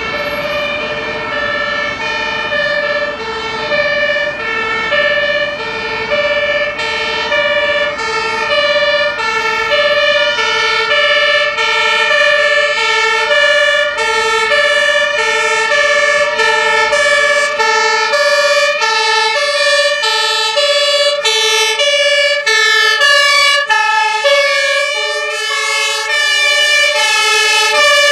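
German two-tone fire engine sirens (Martinshorn) alternating between a low and a high note about every half second. About halfway through, further sirens join out of step, and the sound grows a little louder as the trucks approach.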